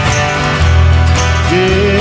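Live praise band playing: acoustic guitars strumming over drums and bass, with a singer coming in on a new sung line about a second and a half in.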